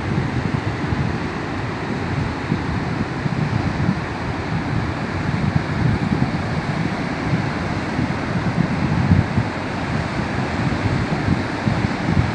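Rough, choppy sea surging and breaking against the shore in a continuous rush, with gusts of wind buffeting the microphone in the low end.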